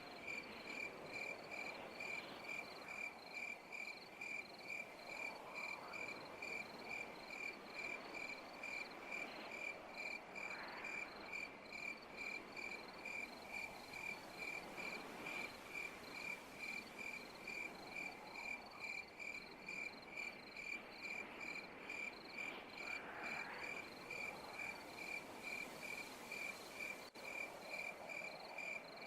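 A cricket chirping steadily in a regular rhythm of about two short, high chirps a second, over a faint background of night ambience that swells softly every few seconds.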